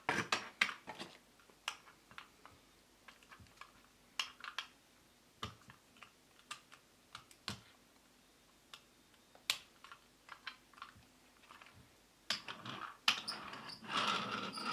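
Light clicks and taps of fingers handling a plastic toy car. About twelve seconds in, a denser stretch of rattling starts as the car's wheels are rolled across a wooden table.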